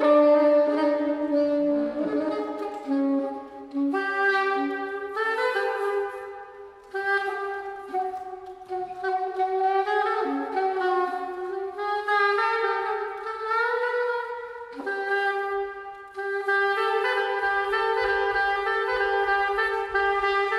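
Soprano saxophone playing a slow line of long held notes, with other sustained instrument tones sounding with it.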